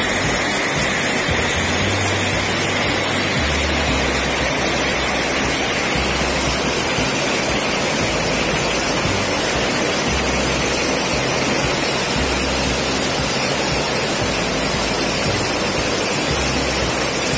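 Water pouring over a small concrete weir and churning white in the pool below: a steady, loud rush.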